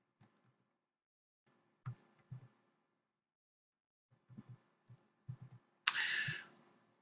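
Faint, scattered keystrokes on a computer keyboard, a few at a time, with a short louder hiss about six seconds in.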